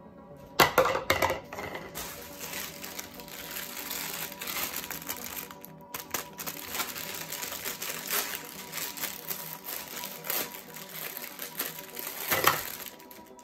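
Plastic wrapper of a Maruchan instant ramen packet crinkling as the dry noodle block inside is crushed by hand, with crackling of breaking noodles; louder crackles about a second in and a louder burst near the end.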